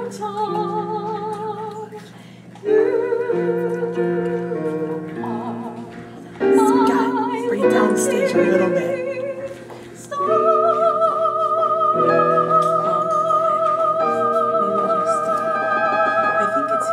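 A classically trained voice sings with strong vibrato over instrumental accompaniment in several phrases, ending on one long held high note from about ten seconds in.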